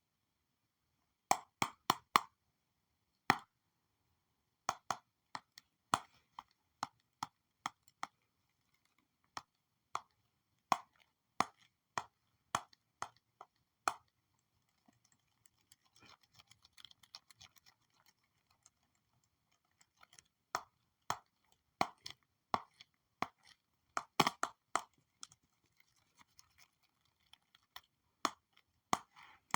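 Stylus tapping on a digital drawing tablet or screen: sharp taps at uneven intervals, sometimes in quick clusters, with a stretch of faint rapid scratching about halfway through.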